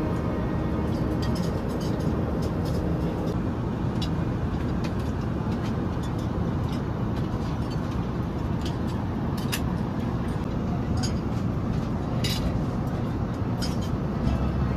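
Steady airliner cabin noise in flight: an even, low rushing hum, with a few scattered light clicks.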